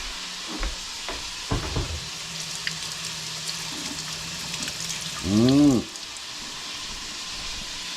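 Chicken wings sizzling in hot oil in a pot as they brown, a steady frying hiss with a few soft knocks early on. A short voiced hum comes about five seconds in.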